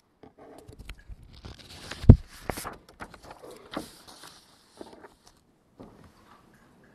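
Handling noise at a lectern picked up by its microphone: rustling and scattered light knocks, with one sharp thump about two seconds in.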